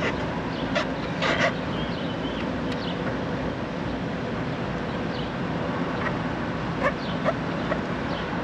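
A dog barking in short, separate barks, a couple about a second in and several more around seven seconds in, over a steady background hum.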